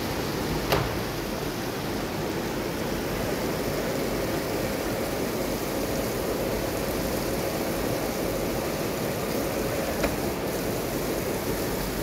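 Cardboard-making machine running: a steady rushing noise of the machine and its pulp water, with a faint hum and two sharp clicks, one near the start and one about ten seconds in.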